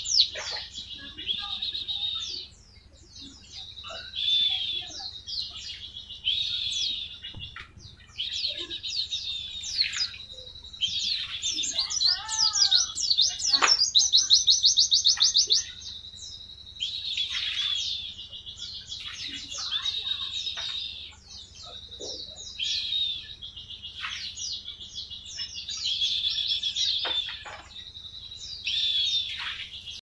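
White-eye (pleci) singing its rapid-fire 'tembakan' song: repeated bursts of high, fast trilling notes, some several seconds long, with short pauses between them.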